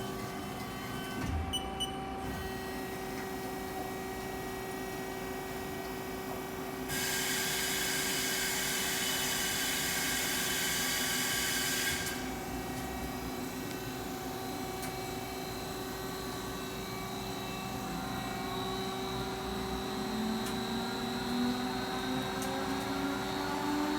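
Haas SL-40TLB CNC lathe running under power with a steady electrical and hydraulic hum. About seven seconds in, a loud hiss starts and cuts off sharply five seconds later. In the last few seconds a rising whine builds as the spindle speeds up.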